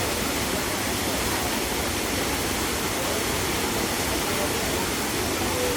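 Waterfall, its falling water rushing steadily.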